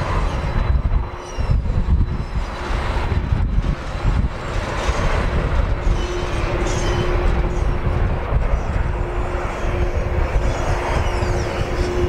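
Strong wind buffeting the microphone in gusts over the steady running of a Boeing 767-300F freighter's turbofan engines as it taxis; a steady hum from the engines grows stronger about halfway through.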